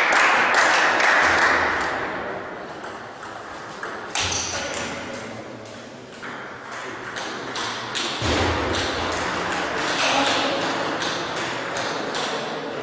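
Table tennis balls clicking on tables and bats, many irregular ticks from rallies on several tables in a sports hall. A loud burst of spectator noise fades out over the first two seconds.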